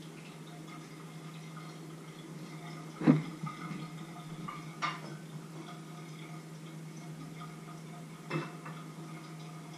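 A few scattered knocks and clinks of kitchen utensils and cookware over a steady low hum. The loudest knock comes about three seconds in, with lighter ones near the middle and near the end.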